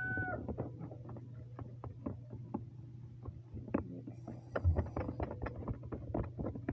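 Plastic spoon stirring purple glue and freshly added activator in a plastic cup: an irregular run of small clicks and taps, several a second, as the slime starts to activate.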